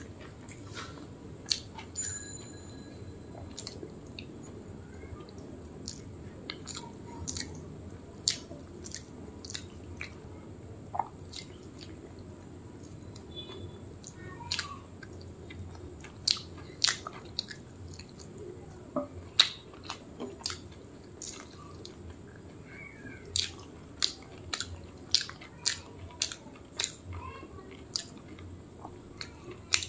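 Close-up chewing and lip smacking of someone eating rice and mutton curry by hand, with short wet clicks, sparse at first and coming more often in the second half.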